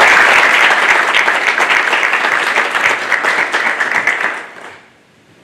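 Audience applauding: many hands clapping together, loud and steady, then dying away about four and a half seconds in.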